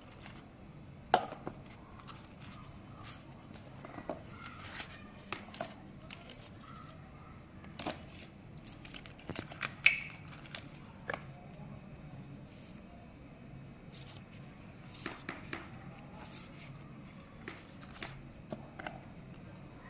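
A product box and its packaging being handled and opened: scattered sharp clicks and taps with some crinkling and tearing, two louder snaps about a second in and near the middle.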